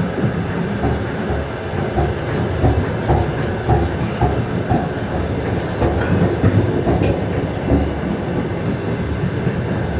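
Russian Railways passenger train running at speed: a steady rumble with the wheels clattering irregularly over rail joints, and brief high squeals now and then.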